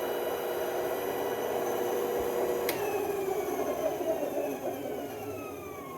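New benchtop band saw running quietly on its first start, with a steady motor hum. It is switched off with a click nearly three seconds in, and the motor and blade wheels then spin down with a slowly falling whine.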